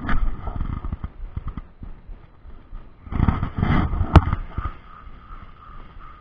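Wind buffeting the microphone in gusts, with a sharp click about four seconds in.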